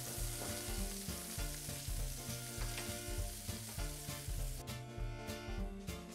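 Scallops searing in a frying pan, sizzling, over background music with a steady beat. The sizzle cuts off suddenly a little past halfway, and the music carries on.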